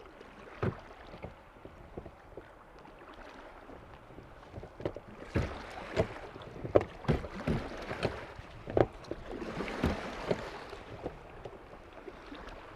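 Scattered knocks and taps on a drifting boat, coming thickest in the middle, over a low wash of water, with a brief hiss about ten seconds in.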